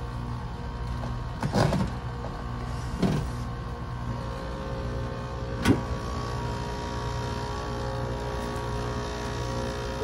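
Carrier packaged air-conditioning unit running with a steady hum while its sheet-metal access panel is handled and pulled off: three metal clanks, about a second and a half in, at about three seconds, and a sharper one near six seconds.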